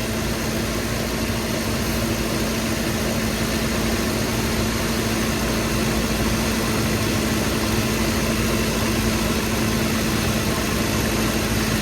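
2008 Toyota Tacoma's engine idling steadily with the air conditioning running at full blast, a steady low hum over the engine noise.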